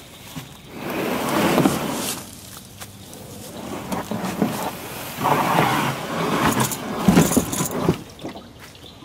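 Canoe hull scraping and grinding over the grassy, reedy bank as it is pushed off into the water, in four rough bursts of a second or so each.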